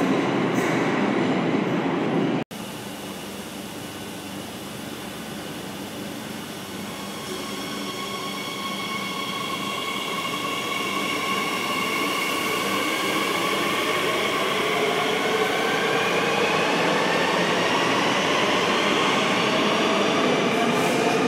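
Madrid Metro 8000-series electric train pulling out along the platform: its traction motors' whine rises steadily in pitch as it accelerates, and the running noise grows louder. A louder train rumble at the start breaks off abruptly about two and a half seconds in.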